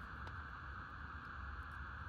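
Steady background hiss and low hum, with a faint click or two from a hand wire stripper or crimper being worked on a cable.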